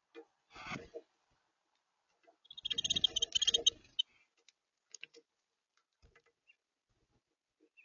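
Harsh bird calls: a short one just after the start, then a loud, rapid chattering burst in the middle, followed by scattered clicks.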